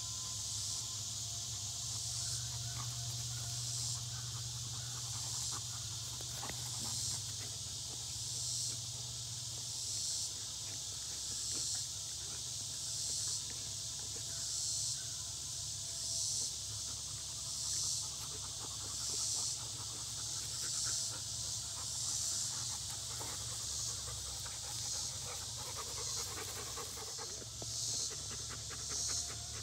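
Yellow Labrador retrievers panting hard as they play-wrestle and roll on grass, over a steady high hiss that swells and fades about once a second.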